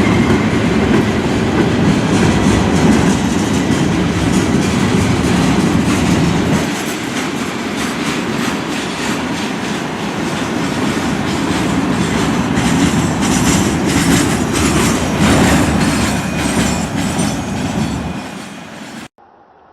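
Freight train rolling past close by: a steady rumble of wheels on rail, with a clickety-clack of wheels over rail joints that grows stronger about two-thirds of the way through. The sound cuts off abruptly near the end.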